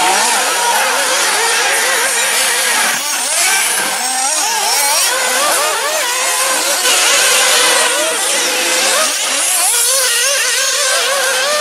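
Several 1/8-scale nitro RC buggies' small two-stroke glow engines racing, their overlapping high-pitched notes constantly rising and falling as they rev and throttle off.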